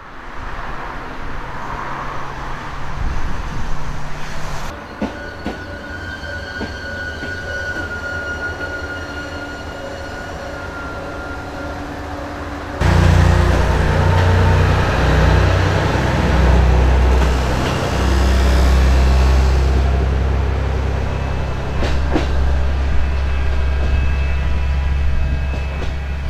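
Red JR Kyushu KiHa 200 series diesel railcar at a station platform, its engine running low, with a high steady squeal for several seconds. About halfway through, the diesel engine opens up abruptly to a loud, deep, steady drone as the railcar pulls away.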